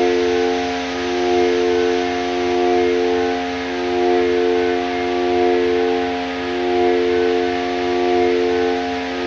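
Korg Volca Modular synthesizer playing an FM drone: a chord of steady tones over a hiss, swelling and fading about every one and a half seconds, with a fast low pulse underneath.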